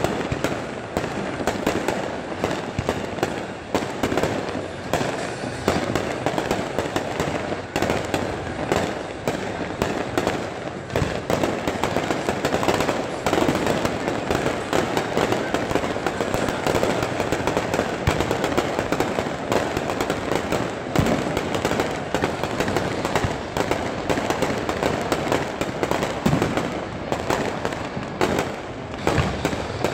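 Aerial fireworks display: a dense, unbroken barrage of shell bursts and crackling, many going off close together.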